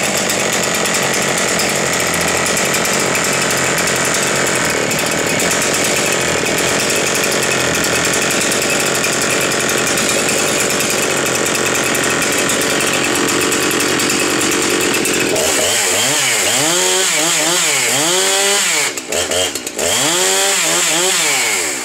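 Husqvarna 390 XP two-stroke chainsaw running at full throttle at a steady pitch. About fifteen seconds in, it switches to a string of rev blips, the engine pitch rising and falling about once a second.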